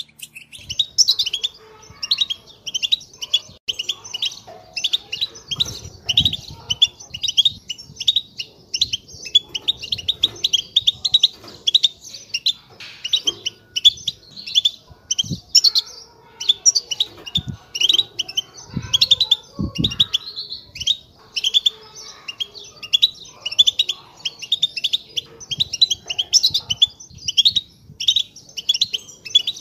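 European goldfinches singing, a fast unbroken stream of high twittering chirps. This is wild goldfinch song of the kind used as a lure to catch goldfinches. A few dull low thumps sound underneath around the middle.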